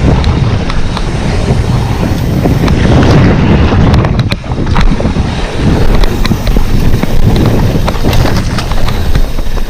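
Loud wind buffeting a moving action camera's microphone, with many sharp clicks and knocks scattered through it.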